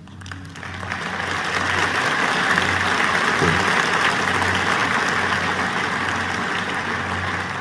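Audience applauding, swelling up over about the first second, holding steady, then easing off near the end.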